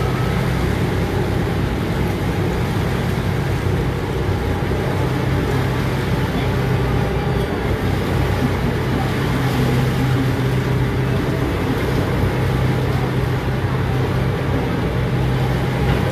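A boat's engine running steadily at sea, a constant low drone.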